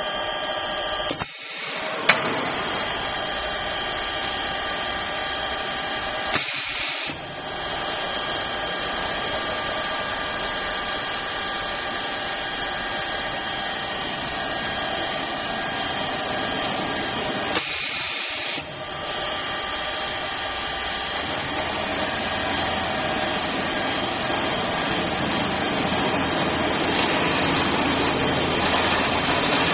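CNC drilling and cutting machine running: a steady whine of several held tones, broken off briefly three times. A rushing noise builds underneath in the last third.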